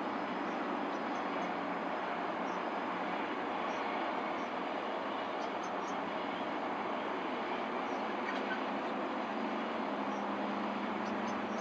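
Train of KiwiRail DL class diesel locomotives in motion, a steady noise of the running train, with a low engine tone growing stronger near the end.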